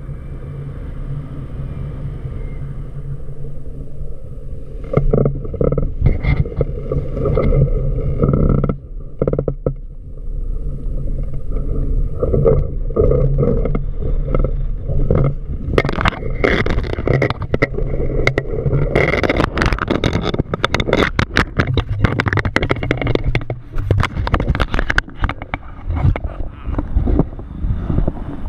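Wind rushing over the microphone in flight, with the Ozone Enzo 2 paraglider's canopy fabric flapping and crackling during a full stall. The flapping grows dense and loud in the second half.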